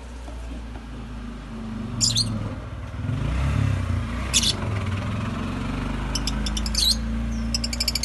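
Rosy-faced lovebirds chirping: single sharp chirps about two seconds in and again near the middle, then quick runs of chattering chirps toward the end, over a steady low rumble.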